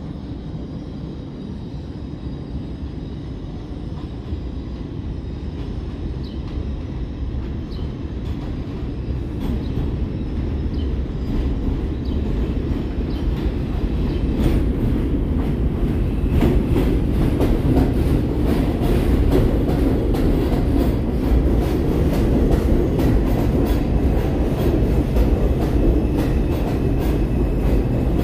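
A New York City Subway R142 train arriving on an elevated line. Its rumble grows steadily louder as it approaches, and from about halfway through it runs alongside the platform with a rapid run of wheel clicks over the rail joints.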